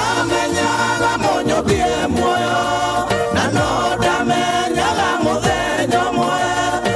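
A man singing a gospel song into a microphone over amplified backing music with a steady beat.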